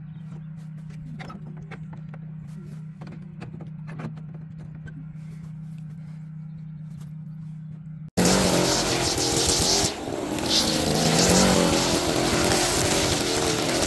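A low steady hum with scattered faint clicks. About eight seconds in, an abrupt cut to a loud small gas engine of lawn equipment running at full throttle.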